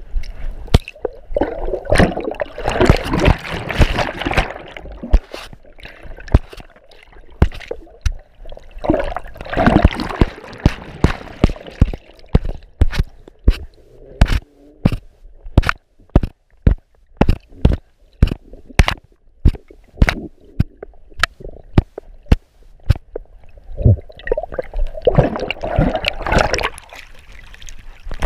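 Water sloshing and gurgling around a GoPro Hero4 Silver chest-mounted on a dog, heard through the camera's waterproof housing while under water. Frequent irregular sharp knocks, with a few longer surges of splashing.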